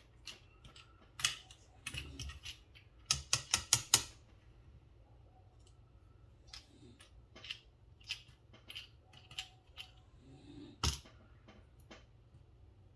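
Sharp clicks and taps of a small Torx driver and small metal knife parts handled during a pocket-knife teardown: a quick run of about five loud clicks a little after three seconds in, then scattered softer ones, with one loud click near eleven seconds.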